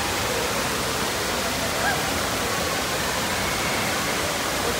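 Steady rush of running water from the fountains and water features of an indoor water park pool, with faint voices in the background.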